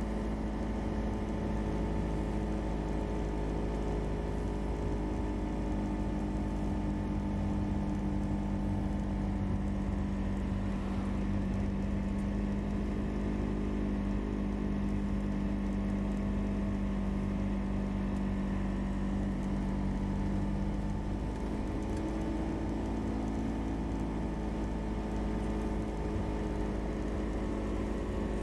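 Car engine and tyre noise heard from inside the cabin while driving steadily at low speed, a low even hum that shifts slightly in pitch about two-thirds of the way through.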